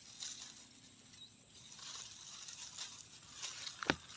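Grass and rice stalks rustling as someone pushes through them, with a short sharp snap near the end.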